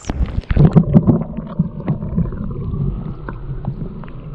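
Muffled water sloshing and gurgling heard with the microphone underwater, loudest in a few surges about half a second to a second in, then settling into a steadier low rumble.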